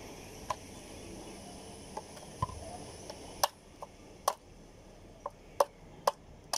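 Knife blade striking and chipping the shell at the top of a tender coconut to open it. About ten sharp, irregular taps, coming more often and louder in the second half.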